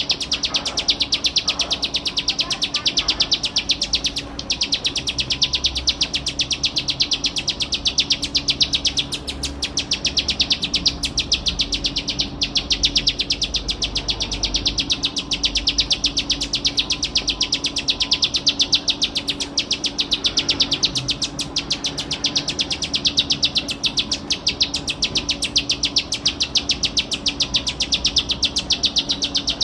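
Ciblek sawah, a small prinia, singing a continuous, very fast trill of dry ticking notes, many to the second, without a break.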